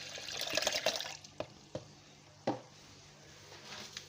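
Milk being poured into an electric blender jar. The pour stops about a second in and is followed by a few sharp knocks.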